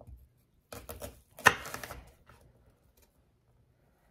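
Chef's knife rough-chopping a sweet onion: a few quick blade strikes on the cutting surface within the first two seconds.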